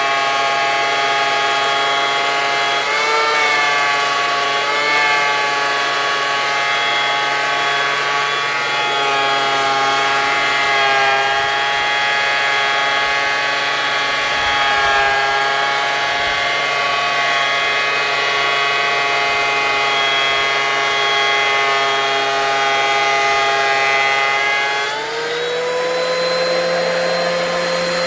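A machine's motor running steadily, with two brief dips in pitch a few seconds in, then rising to a higher steady pitch near the end.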